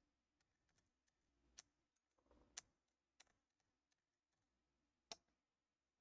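Near silence with a handful of faint, sharp clicks spread through it: small laptop parts being handled during disassembly.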